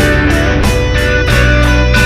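Background music led by guitar, with a steady beat and sustained bass notes.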